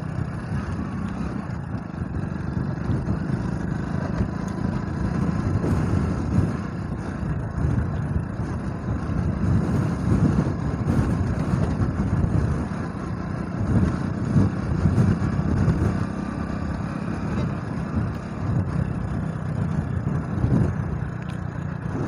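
Motorcycle running steadily at riding speed over a broken, potholed road, its engine mixed with a constant rush of wind and road noise.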